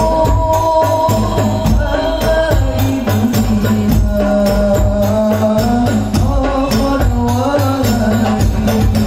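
Hadrah ensemble playing: a male voice sings a devotional Arabic song over a microphone and PA, over a steady, dense beat of rebana frame drums and large bass drums.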